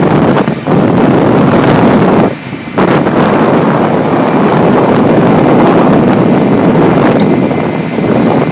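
Strong wind buffeting the microphone on a boat's deck at sea, a dense rumbling rush with a brief lull about two and a half seconds in.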